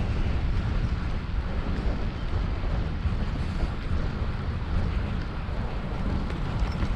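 Wind rushing over the microphone of a camera on a moving bicycle: a steady low rumbling noise with no clear tones.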